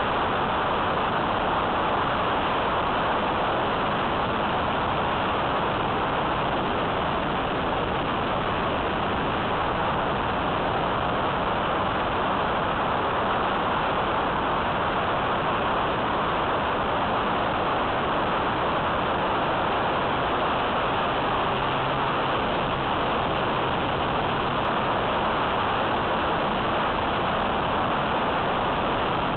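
Steady rush of airflow and the electric motor and propeller of an E-flite Apprentice S15e RC plane in flight, heard as an even, unchanging hiss through a small onboard camera's microphone.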